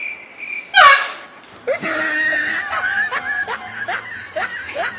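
A prank train horn goes off with a sudden, very loud blast about a second in, met by a startled scream. The horn's steady tone then runs on under laughter.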